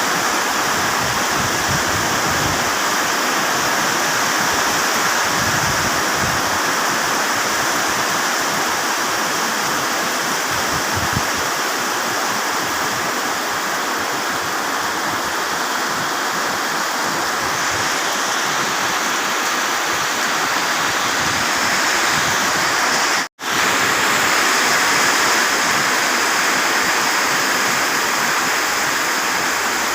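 Heavy rain falling steadily, a continuous rushing hiss of water. The sound cuts out for an instant about two-thirds of the way through.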